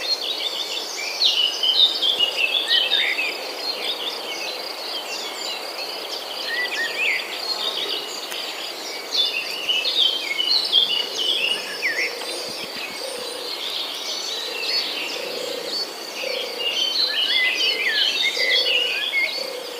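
Nature ambience of many birds chirping and twittering over a steady, high-pitched insect drone.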